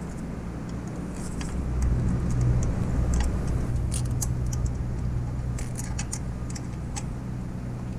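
Small metallic clicks and jingles from a bicycle drum-brake cable, its coiled spring and the brake arm being handled and fitted, over a low steady rumble that swells about two seconds in.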